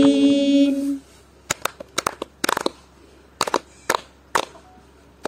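Women singing a traditional Lakshadweep handclap song (kai kotti pattu): a held sung note fades out about a second in. After that come sharp handclaps in a rhythmic pattern of single claps and close pairs, with no singing between.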